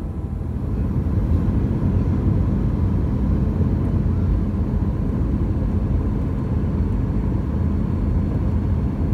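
Airbus A320-200 cabin noise in flight: the steady low rumble of the engines and airflow, with a faint steady tone above it, a little louder from about a second in.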